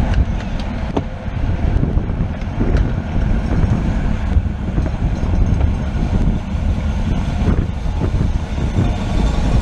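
Wind buffeting the camera microphone on a bicycle moving at race speed: a steady low rumble, with a few scattered sharp clicks.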